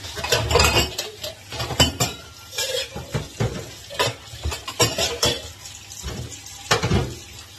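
Stainless-steel cups, a pan and other dishes clattering and clinking as they are handled in a steel kitchen sink, in irregular knocks.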